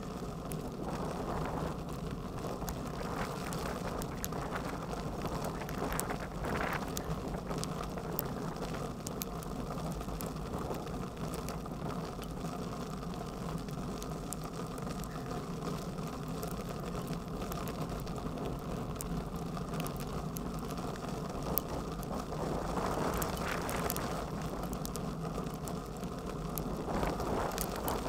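Bicycle riding through hail: a steady low rumble from the ride with many small, irregular ticks of hailstones striking the handlebar-mounted camera and the bike.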